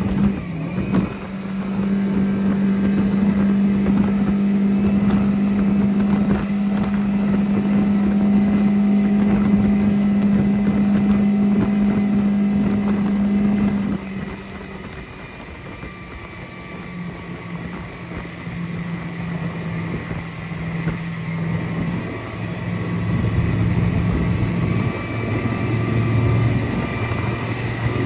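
Mercury 115 hp Pro XS four-stroke outboard running at a steady, even pitch. About halfway through, its note drops and it goes quieter as the throttle comes back. Near the end a lower note builds louder again.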